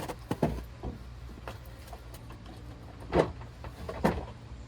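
Three separate clunks or knocks, one near the start, one about three seconds in and one a second later, over a steady low hum.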